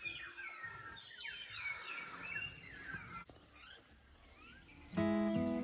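Several small birds chirping and twittering, busy for the first three seconds and then fading. Music with held notes starts near the end.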